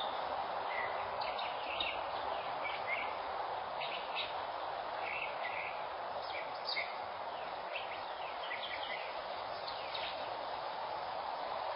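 Small birds chirping, with short high calls scattered every second or so over a steady outdoor background hiss, heard through a security camera's microphone.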